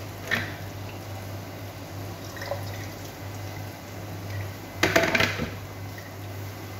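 Soft liquid sounds from a cooking pot on the hob, over a low steady hum, with a brief cluster of loud clattering knocks about five seconds in.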